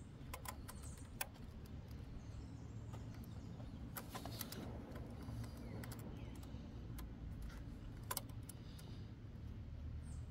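Faint, scattered metallic clicks of circlip pliers working a circlip off a gearbox output shaft, over a low steady rumble.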